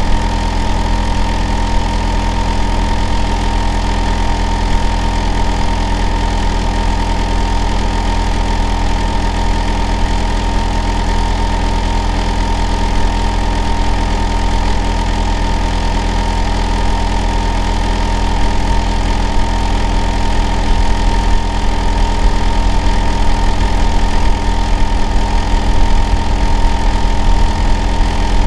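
Hitachi air conditioner outdoor unit running steadily in heating mode, with a loud low hum and a steady whine near 1 kHz over the whir of its compressor and fan.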